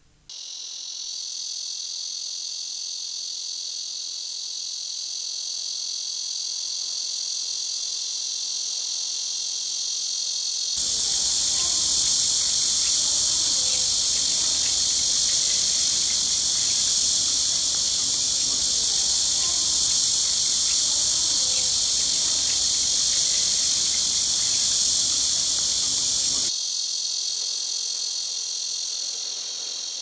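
A dense chorus of cicadas buzzing in the trees: a loud, steady, shrill drone with no break. It grows louder and fuller a third of the way in, with a low rumble beneath it, and drops back near the end.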